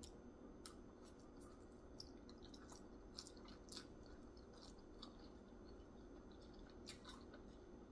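A person chewing food, faint, with scattered soft mouth clicks and small crunches.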